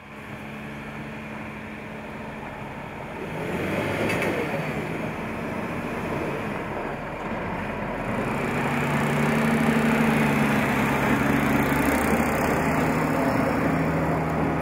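MAN heavy truck's diesel engine running under load with its tyres on loose gravel; it gets louder about 3 seconds in and again about 8 seconds in.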